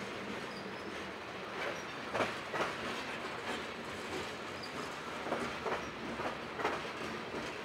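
Freight train tank cars rolling past on steel rails: a steady rumble of wheels on the rail, with clicks as the wheelsets cross rail joints, several coming in quick pairs.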